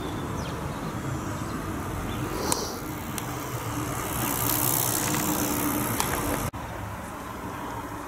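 Outdoor street ambience with steady road traffic noise. The level drops a little at a cut about six and a half seconds in.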